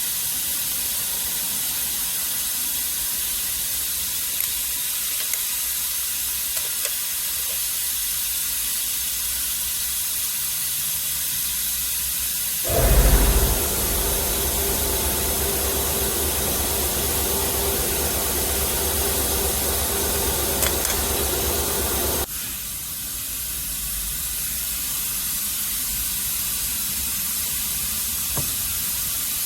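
A steady hiss throughout. About halfway through, a machine starts with a loud surge and runs with a low, steady hum for about ten seconds, then cuts off suddenly.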